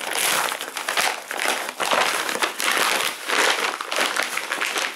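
Yellow padded shipping envelope crinkling and rustling loudly as hands handle it, in irregular surges of crackle.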